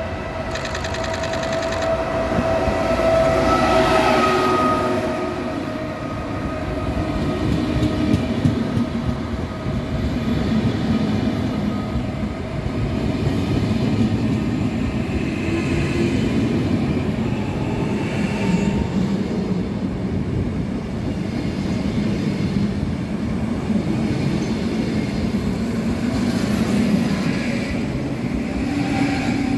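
A train running past on the track, wheels rumbling and clattering without a break. In the first few seconds a steady tone sounds over it, loudest about four seconds in and gone by about five seconds in.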